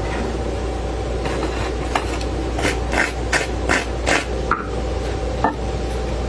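Wooden chopsticks clicking and scraping against a ceramic plate and crisp fried dough sticks as they are laid out: a quick run of light clicks in the middle, about three a second, over a steady low hum.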